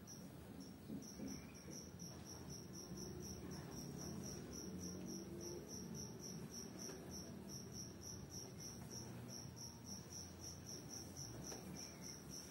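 A cricket chirping steadily, a high pulsed chirp about four times a second, over a low rubbing and rustling from hands massaging skin.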